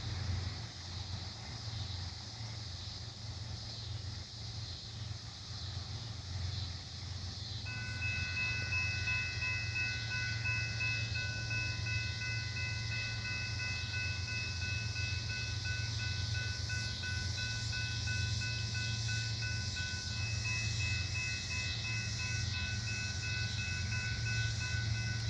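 Union Pacific train rolling past, with a steady rumble and hiss. About eight seconds in, a high, steady metallic squeal of several tones joins and holds.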